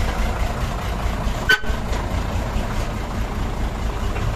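Truck engine idling steadily, with one very short horn toot about a second and a half in.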